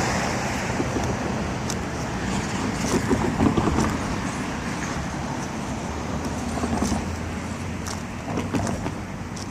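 Steady road traffic: cars passing on a nearby busy street.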